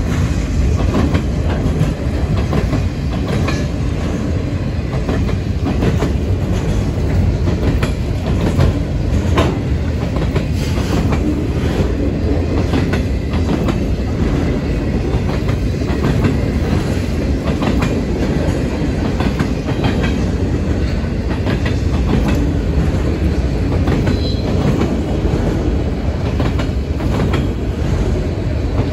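Freight train of autorack cars rolling steadily past, a constant loud rumble with the wheels clicking over the rail joints.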